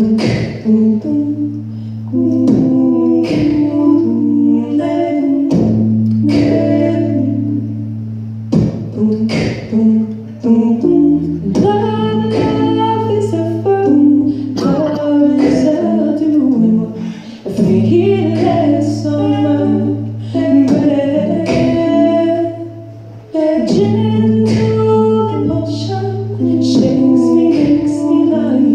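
Live jazz song: a woman singing into a microphone over held low notes that drop out and come back, with sharp percussive hits keeping the rhythm.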